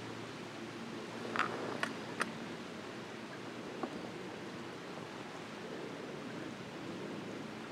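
Steady outdoor background hiss with four faint, sharp clicks: three close together between about one and a half and two and a quarter seconds in, and one more near four seconds.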